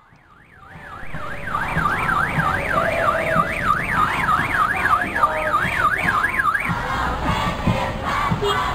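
Electronic alarm siren wailing, its pitch sweeping rapidly up and down about three times a second. It fades in at the start and cuts off about two-thirds of the way through, over crowd noise.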